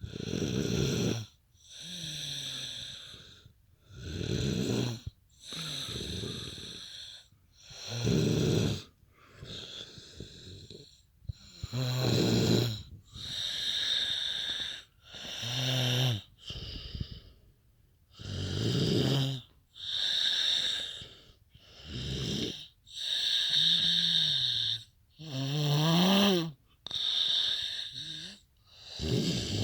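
Heavy snoring in a steady rhythm: a low rasping buzz on each in-breath alternates with a hissing, wheezy out-breath, one full breath about every four seconds. A couple of the in-breath snores bend upward in pitch near the end.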